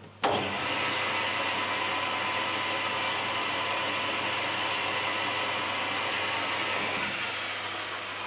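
A workshop machine's electric motor switched on with a click and running steadily with a whine. It is switched off with a click about seven seconds in and slowly winds down.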